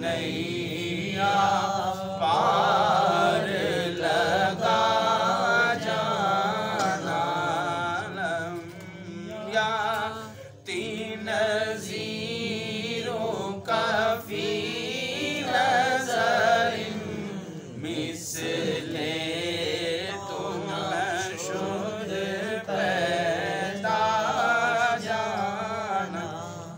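A man chanting a devotional praise poem in a long, melismatic voice, the pitch rising and falling through long phrases with brief pauses for breath, over a steady low hum.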